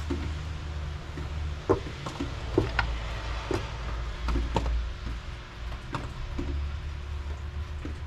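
Scattered light clicks and knocks over a low rumble as a taped bundle of wires is pulled through a rubber firewall grommet.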